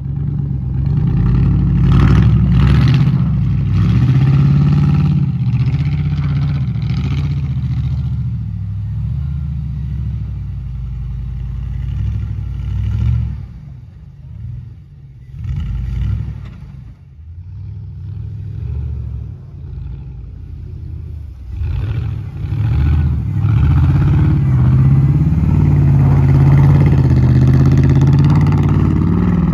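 Straight-piped Chevy Silverado Z71 engine revved hard under wheelspin in snow. It eases off about halfway with a couple of short blips, then winds up again and holds high revs for a long spell near the end.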